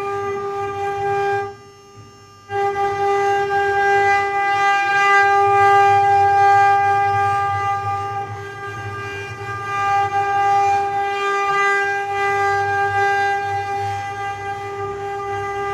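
Mini CNC engraving machine's spindle motor running with a steady high-pitched whine over a low hum. The sound drops away for about a second near the start, then resumes unchanged.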